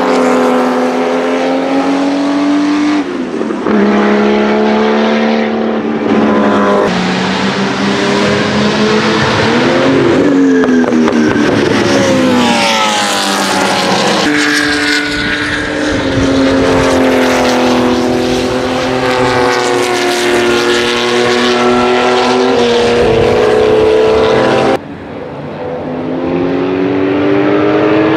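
Race car engines under hard throttle on track, the pitch stepping up and down through gear changes and gliding as cars pass, with abrupt cuts between passes. Near the end the Porsche 935 K3's twin-turbo flat-six comes in quieter and builds in pitch as it accelerates.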